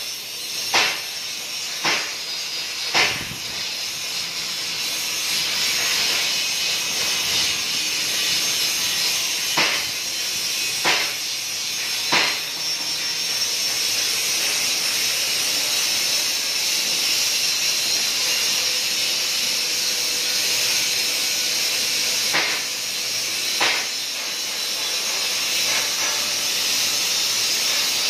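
Continuous hiss of a DC TIG welding arc from a KorWeld DC TIG 350A welder laying a bead on 16 mm stainless steel plate as filler rod is fed in by hand. The steady hiss is broken by a handful of short sharp crackles, a few near the start, a couple a third of the way in and two more near the three-quarter mark.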